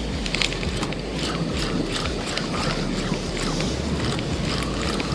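Spinning fishing reel being cranked, its gears whirring with a run of irregular clicks as line is retrieved.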